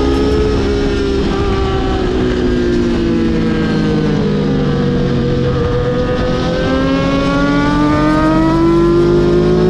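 A vehicle engine running steadily, its pitch sinking slowly through the first half and then climbing again as it slows down and picks up speed.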